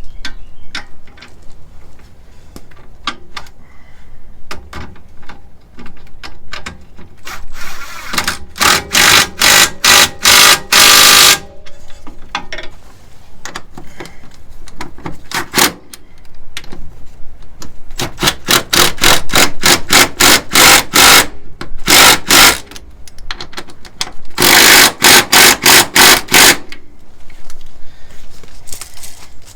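Impact wrench hammering in four bursts of a few seconds each, running down and tightening suspension fasteners, with lighter metal clicks of tools and parts between the bursts.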